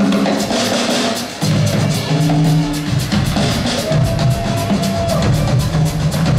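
Live drum duet on two Gretsch drum kits: dense, fast hits on bass drums, toms and cymbals.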